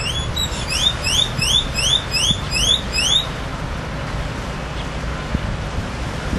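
Car alarm sounding a rapid run of rising whoops, about three to four a second, which stops about three seconds in, over a steady low rumble of traffic or wind.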